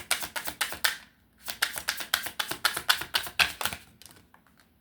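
A deck of tarot cards being shuffled by hand, the cards slapping together in quick runs of clicks. There is a short break about a second in, and the shuffling stops just before the end.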